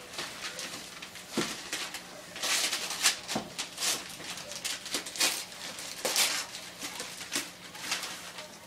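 Gift wrapping paper rustling and tearing as a present is unwrapped by hand, in irregular crinkling bursts with a few sharp rips.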